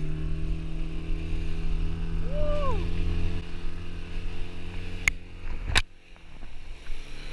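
Small outboard motor pushing an inflatable dinghy runs at a steady pitch after revving up. A short tone rises and falls about two seconds in. Two sharp knocks come around five and six seconds in, and after the second the motor's rumble drops off to a quieter running sound.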